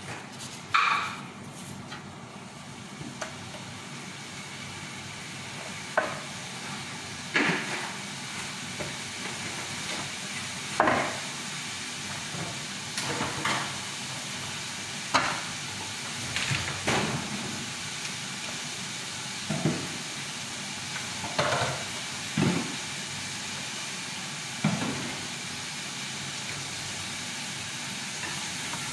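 Plastic-gloved hands handling and rolling flatbread wraps: short rustles and crinkles every second or two over a steady hiss.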